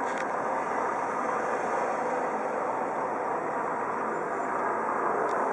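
Eurocopter EC135 twin-turbine helicopter flying low overhead, its rotors and engines making a steady, even drone that holds without change.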